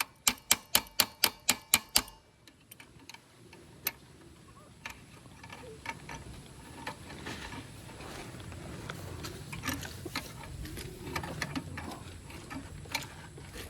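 Rapid hammer blows on metal, about four or five a second with a ringing tone, stopping about two seconds in: knocking at a stuck part of a mud-clogged motorcycle wheel to free it. Faint scattered clicks and low voices follow.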